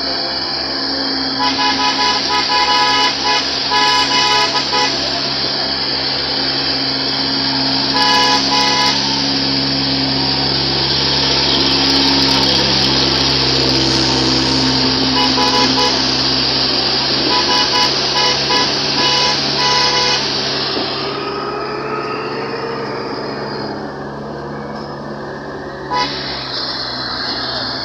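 Engine of an open jeep-type vehicle running along a rough road, its pitch rising and falling, with a vehicle horn sounding in repeated short toots during the first twenty seconds or so.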